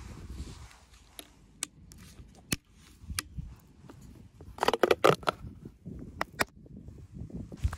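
Plastic paint tub lid being pried open by hand: a few sharp plastic clicks as the rim is worked, then a loud crackling burst of snaps about four and a half seconds in as the lid pulls free, and a couple more clicks after.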